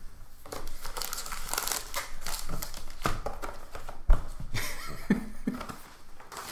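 Plastic wrapping and the cardboard of a Playbook football card box crinkling and rustling as they are handled and opened, with a single knock about four seconds in.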